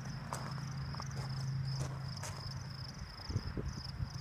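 Insects chirping in a steady high-pitched pulsed trill, about three chirps a second, over a low steady hum that stops about halfway through.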